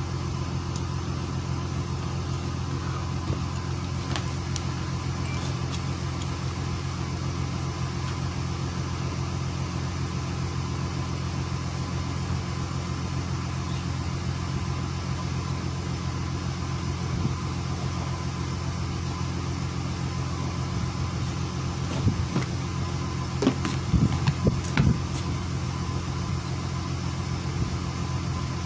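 Fishing boat's engine running steadily, a constant low drone. Late on, a short cluster of knocks and clatters rises above it.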